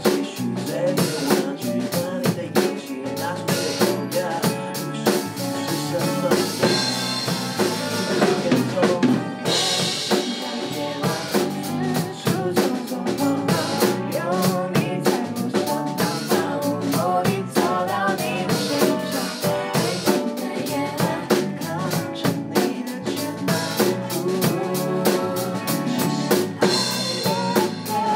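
Live band rehearsing a pop duet: a drum kit keeps a steady beat on snare and bass drum, with electric guitar under a sung vocal line, and a cymbal crash about nine seconds in.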